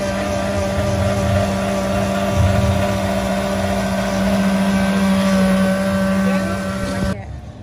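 Electric countertop blender running steadily as it blends a fruit drink, then switched off suddenly near the end.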